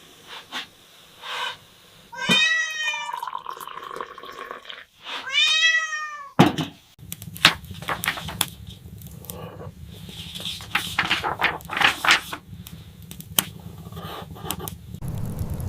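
A kitten meows twice, about two and five seconds in, each call rising and falling in pitch. After that comes a low steady rumble with scattered small crackles and clicks.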